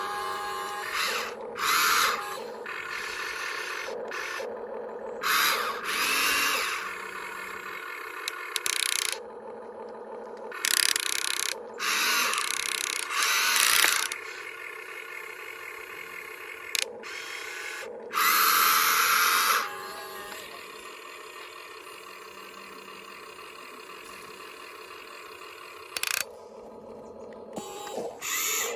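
Toy remote-control excavator's small electric motors and plastic gearboxes whirring in short, shrill spells as the boom, arm and tracks are worked, over a steady electric hum.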